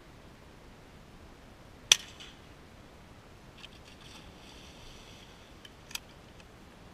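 A single sharp shotgun shot about two seconds in, then faint splashing as a retriever plunges into the pond and swims out on the retrieve, and a second, weaker crack near the end.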